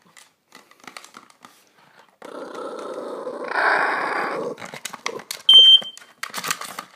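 A dog chewing the plastic casing of a smoke detector, with scattered clicks and crunches, and growling for about two seconds. A little past the middle, a smoke detector gives one short, loud, high chirp, the beep of a faulty detector.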